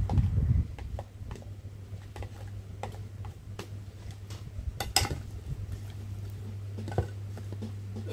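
Plastic spoon scraping and clicking against a plastic food container while eating, a few separate clicks with the sharpest about five seconds in, over a steady low hum.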